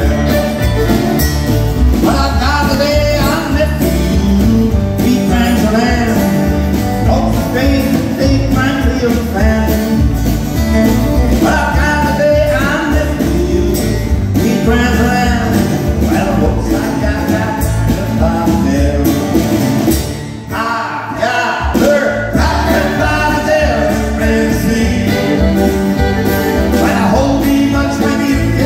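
Live acoustic country music: a man sings over strummed acoustic guitars and a fiddle. The music dips briefly about two-thirds of the way through.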